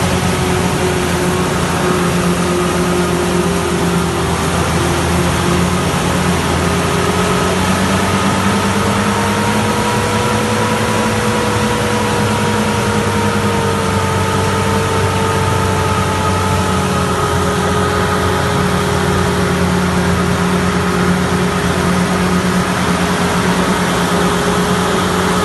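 Heavy farm tractor diesel engines running steadily under work, with a whine that rises a little about ten seconds in and eases back down.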